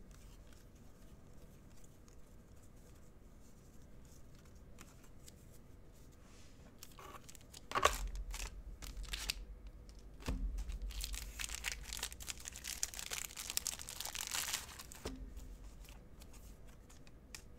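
Hockey card pack wrapper being torn open and crinkled by hand, starting about halfway through after several quiet seconds and busiest a few seconds later, with a couple of soft knocks as the pack is handled.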